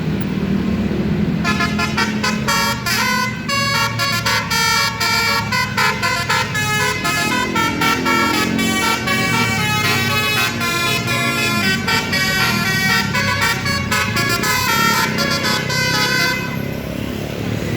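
A bus's telolet musical horn playing a rapid, many-note tune over a low engine rumble, starting about a second and a half in and stopping shortly before the end.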